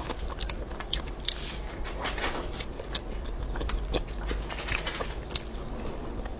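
Close-miked chewing of a soft, thin-skinned mung bean pastry, with many small irregular mouth clicks.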